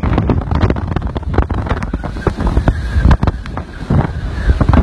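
Hurricane-force wind gusting hard against the microphone: a heavy, rough rumble broken by frequent sharp cracks and pops, with a faint high whistle through the middle.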